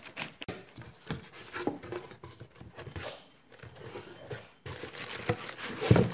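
Packaging being torn and unpacked by hand: plastic mailer bag and cardboard box rustling and crinkling in short, irregular bursts. Near the end there is a longer spell of crinkling plastic with a sharp knock, as a plastic-wrapped motorcycle air filter comes out of its box.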